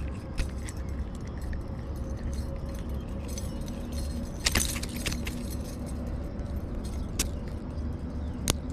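Small metal fishing tackle (spoon lure and hook) clinking and clicking as it is handled, in scattered ticks with a brief cluster about halfway and one sharp click near the end, over a steady low rumble.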